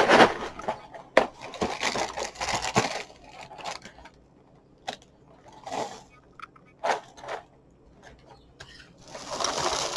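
Dry cereal being poured out of its bag into a bowl, rattling and crinkling in bursts over the first few seconds, then a few scattered clicks and a short rustle near the end.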